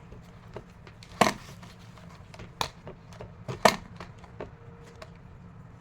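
A few sharp clicks and taps from handling battery test equipment during a voltage check, the three loudest about a second apart, over a faint steady low hum.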